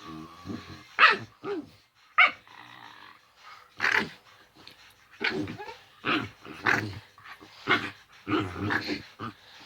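A dog growling and barking in play, in about ten short outbursts with brief gaps between them. These are his normal playing noises, not aggression.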